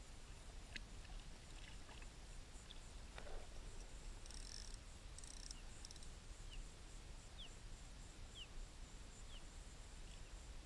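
Faint outdoor background on open water from a kayak: a steady low wind rumble on the camera, with a few small clicks early on. In the second half, four short, faint high chirps, each falling in pitch, come about a second apart.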